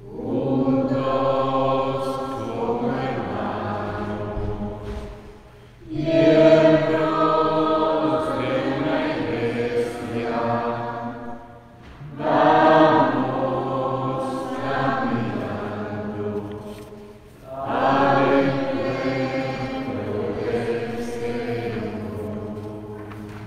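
Choir singing a hymn in four long phrases of about five to six seconds each, with a brief dip between phrases.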